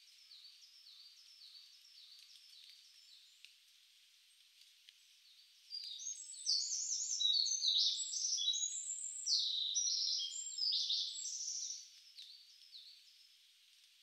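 Songbirds singing in woodland over a faint steady high hiss. At first one bird repeats short, falling high notes faintly. About six seconds in, a much louder bird close by sings a fast, jumbled run of high notes for about six seconds, then it drops back to the faint repeated notes.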